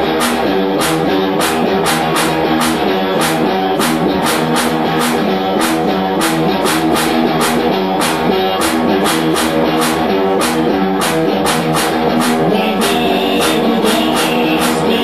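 Live garage rock: electric guitar chords over a fast, steady drum beat of about four hits a second. A singing voice comes in near the end.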